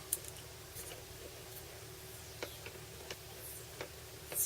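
A few faint clicks and taps from handling the vacuum cleaner's flex, with a sharper click near the end, over a low steady hum.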